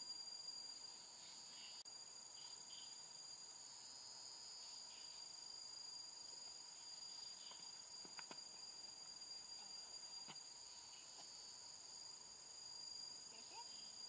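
Faint, steady high-pitched insect drone in tropical forest, two unbroken tones, with a couple of faint clicks about eight and ten seconds in.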